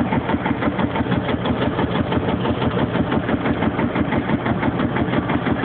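Field Marshall tractor's single-cylinder two-stroke diesel engine running steadily under belt load, driving a threshing machine: a fast, even beat of heavy exhaust thumps.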